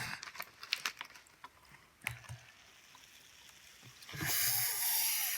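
Small foam slime beads clicking and pattering, then, about four seconds in, a loud rustling hiss of foam beads pouring out of their bag for about a second and a half.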